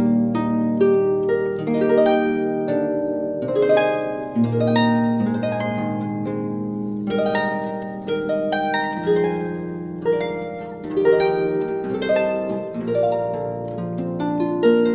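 Slow instrumental music: a steady run of notes that start sharply and ring away, with held low bass notes underneath.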